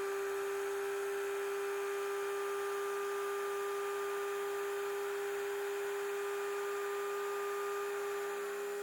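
Steady electronic warning buzzer tone, typical of the FMTV's low-air-pressure alarm sounding while the compressor builds air pressure. It holds one unchanging pitch throughout.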